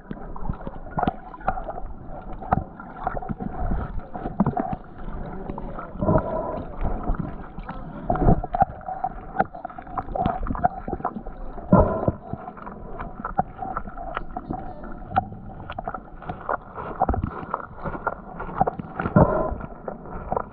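Muffled underwater sound picked up by a submerged camera: water moving and gurgling, with many irregular small clicks and knocks.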